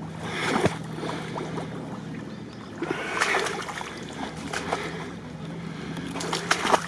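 Someone wading through shallow swamp water in boots: irregular sloshing and splashing of the steps, over a steady low hum.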